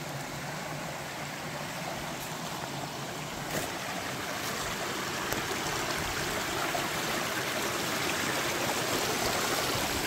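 Small mountain stream running over rocks, a steady rushing and trickling that grows gradually louder.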